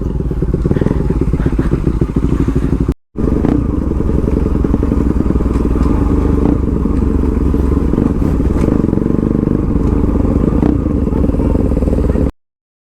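Motorcycle engine running steadily with fast regular firing pulses. The sound drops out completely for a moment about three seconds in and cuts off shortly before the end.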